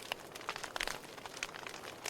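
Wood fire crackling in a fireplace: irregular sharp pops and snaps over a soft steady hiss, with a cluster of louder pops just under a second in.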